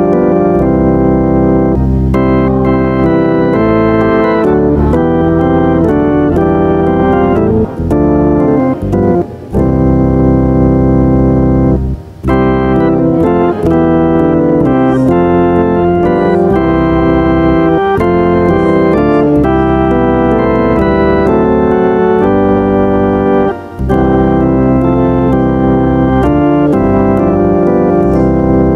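Church organ playing a hymn in sustained chords, with a few brief breaks between phrases.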